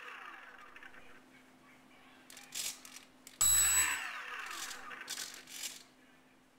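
Small electric motor on a foam RC jet spinning a two-blade pusher propeller in short throttle blips: it is winding down at the start, is throttled up sharply about three and a half seconds in with a high whine, then winds down again with falling pitch.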